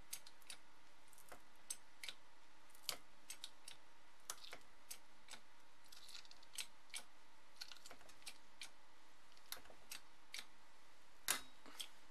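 A flashlight cracking and crackling with irregular sharp snaps as a 5-ton bottle-jack hydraulic press slowly crushes it, with a louder crack near the end.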